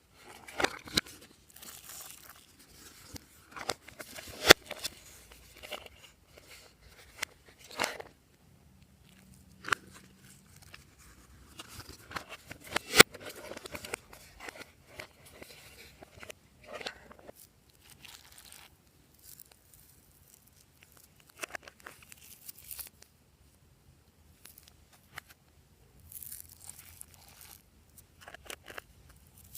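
Glossy slime being stretched, squeezed and mixed by hand, giving irregular sticky crackles, tearing sounds and clicks, with a couple of sharper pops standing out, one about four seconds in and one around the middle.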